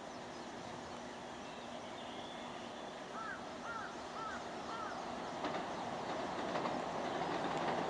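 E233-3000 series electric commuter train approaching on the rails, its running noise steadily growing louder. The first faint rail-joint clicks start in the second half.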